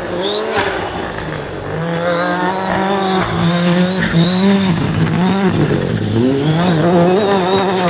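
Ford Fiesta rally car on a gravel stage, its engine revving hard with the pitch swinging up and down as it is driven through a bend. The revs drop sharply about six seconds in and climb again. Gravel noise under the tyres runs beneath the engine.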